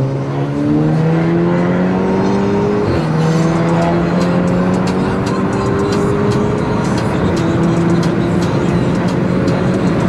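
Turbocharged car engine accelerating hard under load, its pitch climbing steadily. A gear change about three seconds in drops it, and then it climbs again more slowly.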